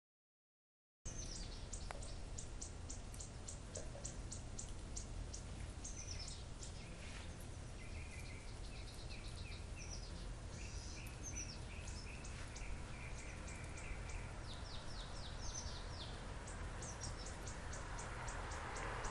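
Wild birds chirping, starting about a second in: quick runs of short, high chirps, with a series of lower repeated notes in the middle, over a steady low rumble.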